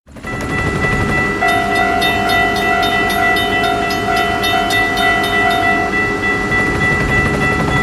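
A train passing: a loud, steady rumble of running wheels with a rhythmic clatter, and a long held horn tone from about a second and a half in until about six seconds.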